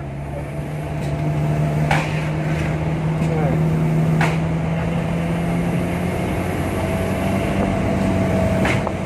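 Engine of a small truck or van running while driving, heard from inside the cab; it grows louder over the first few seconds and its note rises slightly past the middle. A couple of sharp clicks sound about two and four seconds in.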